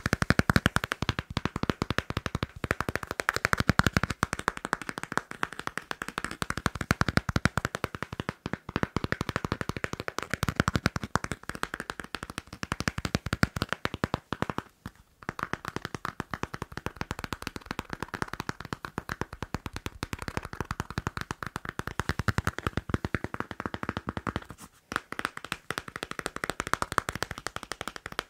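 Fast tapping and scratching on a passport: a dense run of quick taps, broken by short pauses about 15 seconds in and again about 25 seconds in.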